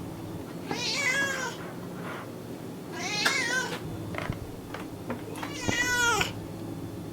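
Domestic cat meowing three times, each call about a second long and falling in pitch toward its end.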